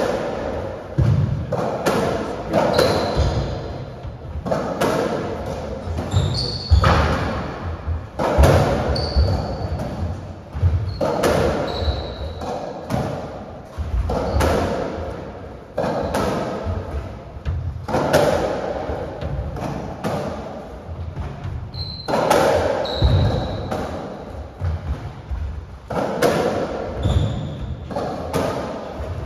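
Racketball rally in an enclosed squash court: the ball is struck by the rackets and rebounds off the walls with a loud echoing hit about every two seconds. Short, high shoe squeaks on the wooden floor come between the shots.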